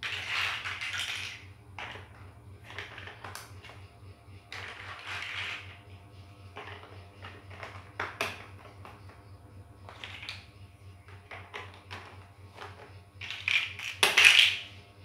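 Plastic toy building blocks clicking and clattering in irregular bursts as they are pressed onto a model and picked from a loose pile, loudest near the end.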